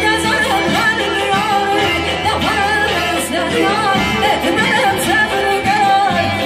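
A woman singing an Azerbaijani wedding song live through a microphone, with a wavering, ornamented melody, accompanied by saz, violins and keyboard.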